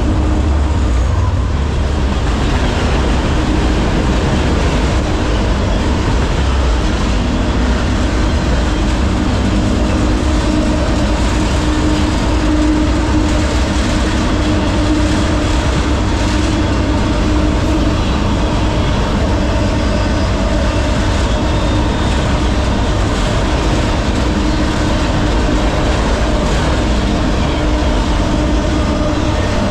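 Freight train rolling along the track, heard from aboard: a steady, loud rumble of wheels on rail that holds even throughout.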